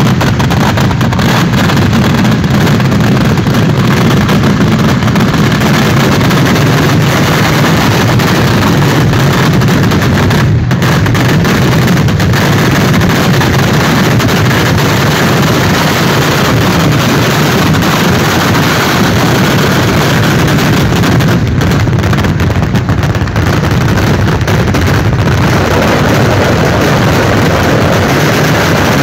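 Fireworks going off in a dense, unbroken barrage of bangs and crackles, loud and steady in level.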